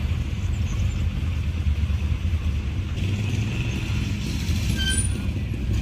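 Vintage cars rolling slowly past with a low, steady engine rumble.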